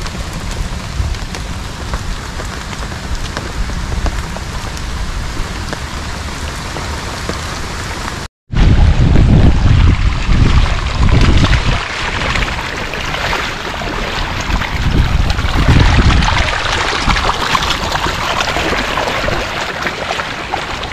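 Steady rain falling. About eight seconds in the sound cuts out for an instant, and after that the rain is louder, with low rumbling gusts.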